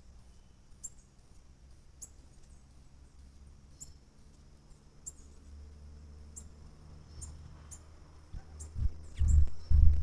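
Thin, high bird call notes at irregular intervals of about a second, over a faint steady high tone. Near the end come a few loud, low thumps and rumbles.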